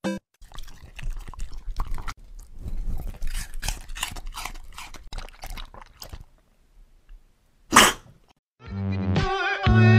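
A Samoyed dog making wet mouth sounds right into a microphone: irregular licking, smacking and breathing noises, then one short loud burst of noise near the end.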